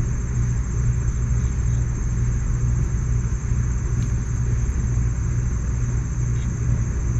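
A steady low rumble runs without a break, with a constant high-pitched drone above it.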